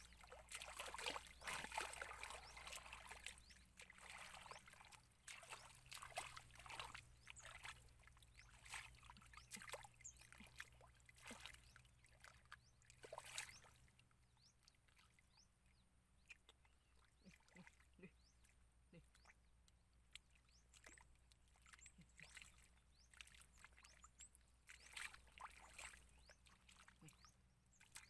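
Faint sloshing and splashing of hands working through shallow muddy water, feeling for fish, in irregular splashes that are busiest in the first few seconds.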